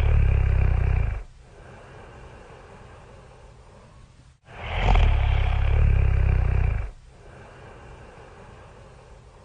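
Really loud snoring: two long, low, rumbling snores, each followed by a few seconds of much quieter breathing out.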